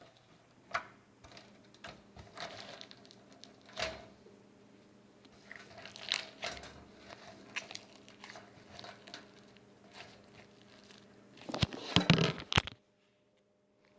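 Slime being squished and pressed by hand for ASMR: scattered sticky clicks and pops, with a burst of louder, quicker pops about twelve seconds in before the sound cuts out abruptly.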